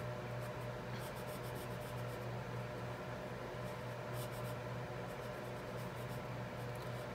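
Alcohol marker rubbing on paper in short, repeated coloring strokes, a soft scratchy sound over a steady low hum.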